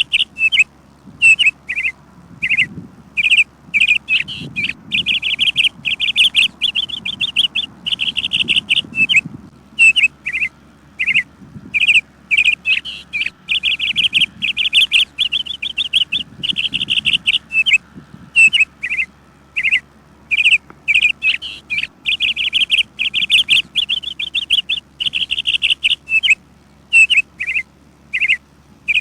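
Small birds chirping busily: quick runs of rapid chirps lasting a second or two, broken by single short chirps, with hardly a pause.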